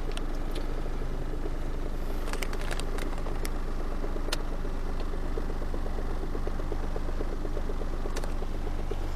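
Mazda 626's 2.0-litre FS four-cylinder engine idling steadily in park, with a few light clicks a couple of seconds in and again near the end.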